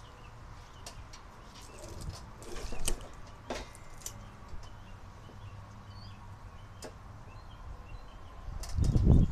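Scattered knocks, clicks and rustling from handling, with a loud low rumbling thump about nine seconds in, over a steady low hum. Faint bird chirps sound in the background.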